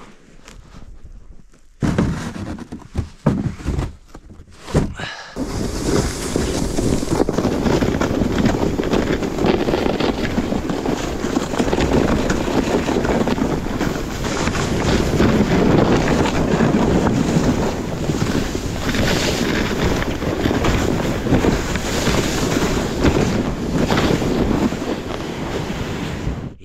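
Loaded sled sliding fast down a snowy slope with a rider aboard: a steady hiss and scrape of snow under the sled, with snow spraying and wind buffeting the microphone. A few knocks and scrapes come first, then the slide runs on without a break from about five seconds in until it stops right at the end.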